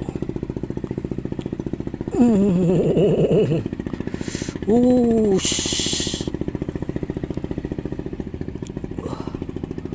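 A man grunts with effort twice and hisses out breath while straining to pull a hooked eel out of its mud burrow. Under it, a small engine runs steadily with an even, fast pulse.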